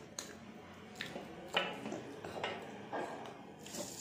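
Close-miked eating: wet chewing and mouth noises with about six short, sharp clicks and knocks, some like a plate being touched.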